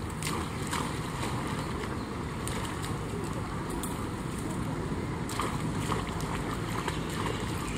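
Wind on the microphone: a steady low rumble, with a few faint light taps scattered through it.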